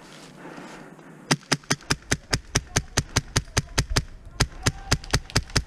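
Krytac airsoft rifle firing a rapid string of about twenty single shots, sharp cracks about five a second, with a brief pause about two-thirds of the way through.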